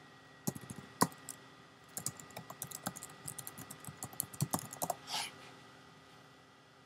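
Typing on a computer keyboard: a few separate clicks, then a quick run of keystrokes lasting about three seconds that stops about five seconds in.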